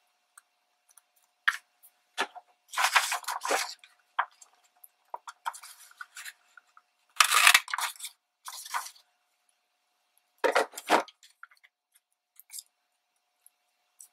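Paper being handled and crinkled in irregular bursts, with a handheld circle paper punch being loaded and pressed to cut a paper circle; the loudest crunch comes about halfway through.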